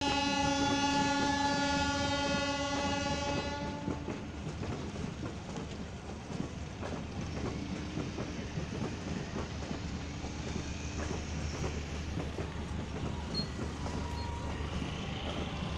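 Train horn sounding one long blast for about four seconds, then the rumble of passenger coaches rolling along the track with a steady clicking of wheels over the rails.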